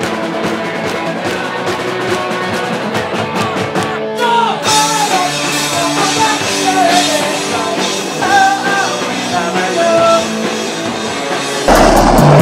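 Rock band music: drums, guitars and bass, with a wavering melodic lead line through the middle. Near the end it cuts abruptly to louder sound with a heavy low bass.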